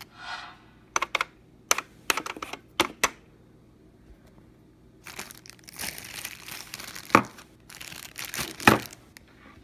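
Handling noise on the recording device's microphone: a run of sharp clicks in the first three seconds, then several seconds of crinkly rubbing with two louder clicks near the end.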